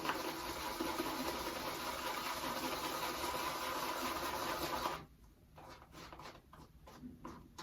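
Shaving brush rapidly working wet shaving soap into lather, a fast steady swishing scratch that stops suddenly about five seconds in, followed by a few faint soft ticks.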